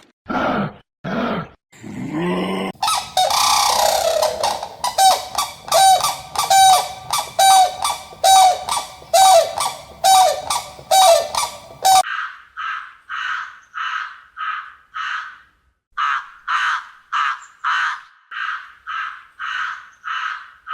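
Farmyard birds calling in series: a few short calls, then a run of repeated honking calls about twice a second. About halfway through it cuts abruptly to a different run of short, thinner calls at a similar pace.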